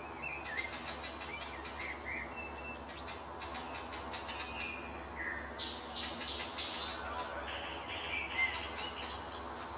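Birds chirping in many short, quick calls with small rising and falling slides, busiest about six seconds in, over a steady low hum.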